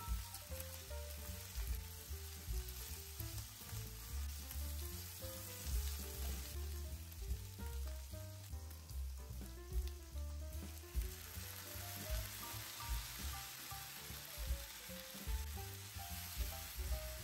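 Shrimp, scrambled egg and cucumber sizzling in a nonstick pan while being stirred with a silicone spatula; the sizzle grows brighter about eleven seconds in, once a thin sauce is bubbling in the pan. Soft background music with a melody and a low bass beat plays underneath.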